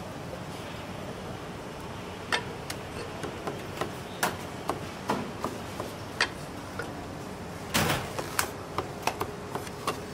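Chinese cleaver chopping roast meat on a thick round wooden chopping block: a run of irregular sharp chops starting about two seconds in, with the heaviest blow about eight seconds in.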